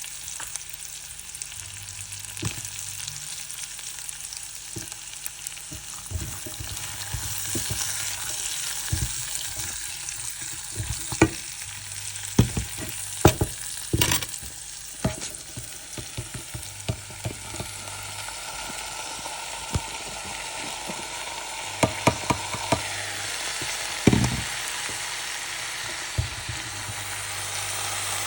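Food sizzling in hot oil in a pan with a steady hiss, stirred with a spatula that knocks and scrapes against the pan many times, most sharply in the middle and again near the end.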